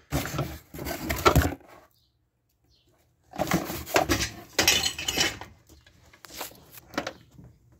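Rummaging through a pile of metal odds and ends and a cardboard box: metal parts clattering and clinking as they are shifted. There are two spells of it, the second beginning about three seconds in, then a few lighter knocks near the end.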